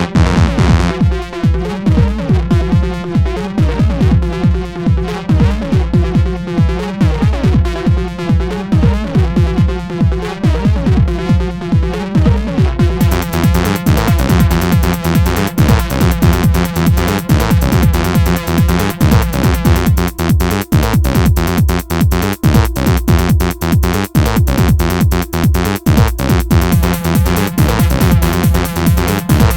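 Electronic dance music with a steady, driving beat; about halfway through the high end suddenly opens up and the track gets brighter.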